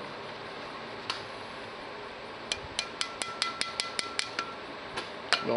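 Hammer lightly tapping a new seal into the hub of a John Deere 4400 combine's center drive pulley: one tap, then a quick run of about ten light taps, about five a second, with a metallic ring under them, and one more tap near the end.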